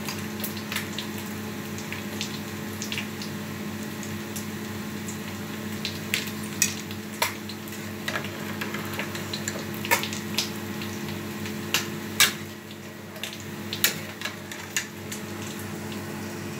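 A metal spoon stirring and clinking against a large aluminium pot of rice, vegetables and water, in scattered sharp clicks that come more often after the first few seconds. A steady low hum runs underneath.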